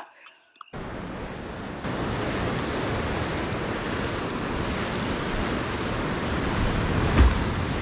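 Ocean surf washing against a lava-rock shoreline, a steady rushing noise with wind buffeting the microphone, starting under a second in. A single low thump near the end.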